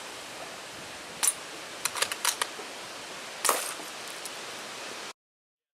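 A bolt-action airsoft sniper rifle being worked and fired: a few sharp mechanical clicks, then about three and a half seconds in a single louder shot with a short noisy tail. The audio cuts off abruptly about five seconds in.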